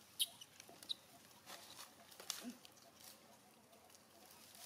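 Faint crackling and rustling of dry leaf litter and twigs as macaques shift about on the ground, with a few sharp clicks, the loudest just after the start and about two and a half seconds in.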